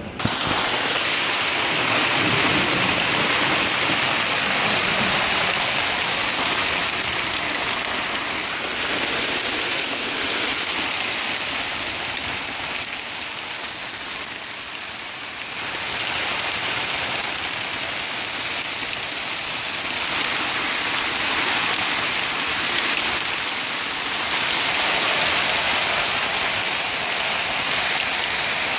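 Heavy hail pelting a shingled roof and concrete: a dense, steady hiss of countless small hailstone impacts, easing slightly about halfway through before building again.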